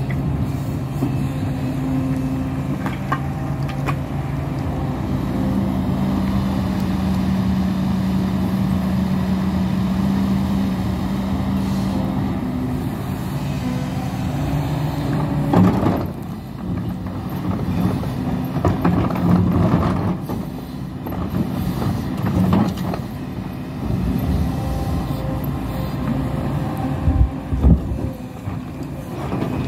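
Hidromek HMK 230LC crawler excavator's diesel engine running steadily, its tone shifting as the hydraulics take load. From about halfway in there are several loud knocks from the bucket working stony ground.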